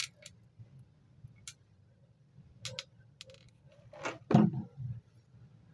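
Small handling clicks and taps from working with a hot glue gun on a small hobby model, with a louder knock about four seconds in.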